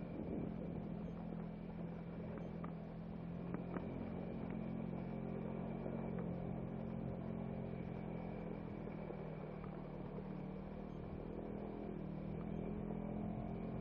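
Steady low mechanical hum, like an engine running, with a faint steady high whine above it and a few scattered small ticks.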